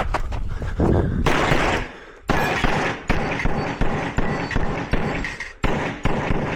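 Rapid semi-automatic pistol fire during a practical-shooting course of fire: quick strings of shots, many in fast pairs, with a short break about two seconds in as the shooter moves between targets.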